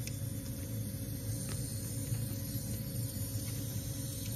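Ford 6.7 Power Stroke diesel fuel system priming with the key on after a CP4 bypass kit install. A steady hissing sound sits over a low hum. The owner takes it for air being purged from the fuel system.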